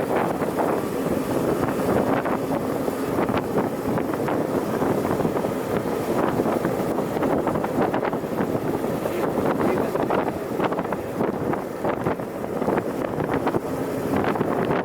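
GAZ-66 truck's V8 engine running as it drives, with wind buffeting the microphone and frequent short rattles.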